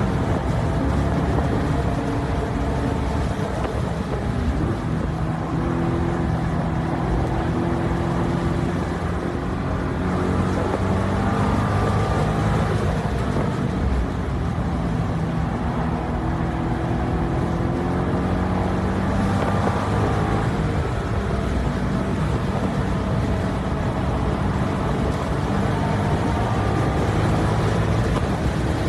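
2012 Corvette Grand Sport's 6.2-litre LS3 V8 at full load on a road course, its revs rising and falling through shifts and corners.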